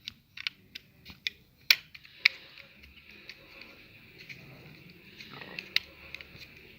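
Sharp plastic clicks and taps at irregular intervals from a computer mouse being worked on by hand. Several come close together in the first two seconds and a loud single one comes near the end.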